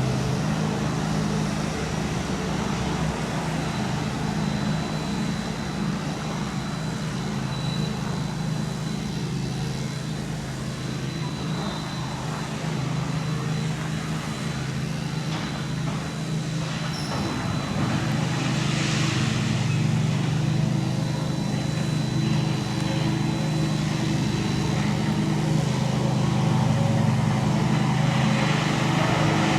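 Heavy diesel engine of a demolition excavator running steadily, growing louder in the second half, with brief rushes of noise around the middle and near the end.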